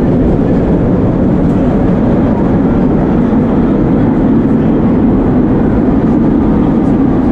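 1930s vintage subway train running between stations: the steady, loud noise of wheels on the rails and traction motors, heard from inside the car.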